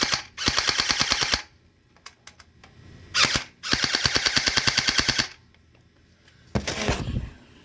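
Electric gel blaster Glock firing full-auto bursts of gel beads, a rapid run of about a dozen shots a second: one burst of about a second, then a short burst and a longer burst of about one and a half seconds. A short noisy rustle follows near the end.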